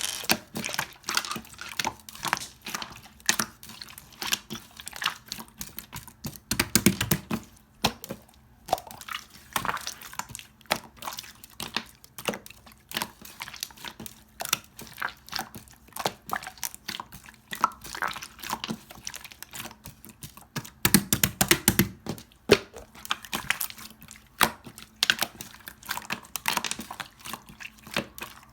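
Hands squishing, poking and stretching clear slime: a dense, uneven run of small wet clicks and air-bubble pops, with louder squelching stretches about a quarter of the way in and again past two-thirds.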